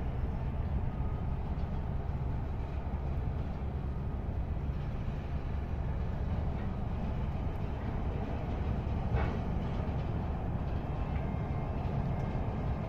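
Heavy machinery running with a steady low rumble, with one brief knock about nine seconds in.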